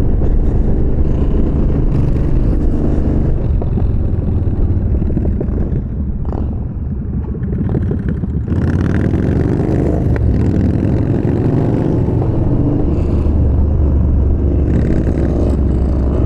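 Yamaha Bolt's air-cooled V-twin engine running under way, with wind noise. It eases off around six seconds in, then picks up again from about eight seconds, the pitch rising as it accelerates.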